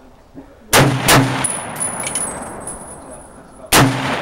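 Bushmaster M4-style 5.56 mm carbine firing three shots, each followed by a short echo. Two come in quick succession about a second in, and the third about three seconds later.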